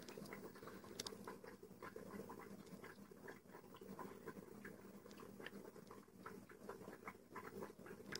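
Near silence: faint scattered clicks and taps, a few a second, over a low steady room hum.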